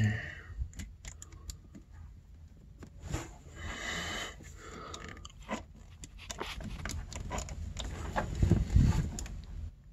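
Small clicks, taps and scrapes of hands working snowmobile power valve cable ends into the servo pulley, with heavier bumps near the end.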